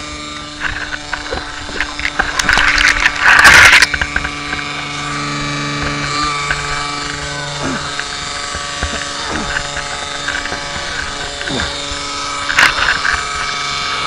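Kawasaki KLR dual-sport motorcycle's single-cylinder engine running steadily, with a loud burst of noise between about two and four seconds in and a shorter one near the end.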